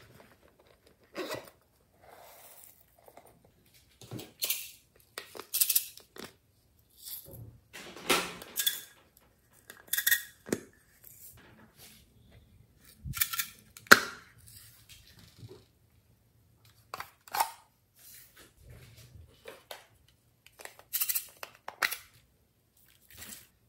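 Irregular clicks, taps and short rustles of small plastic and silicone containers being handled and opened, with glitter and sequins tipped into a glass dish of slime.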